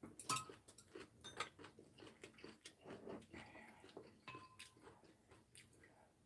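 Faint eating sounds: chewing and mouth noises with chopsticks and spoons clicking against ceramic bowls, the sharpest click about a third of a second in and a short ringing clink about four seconds in.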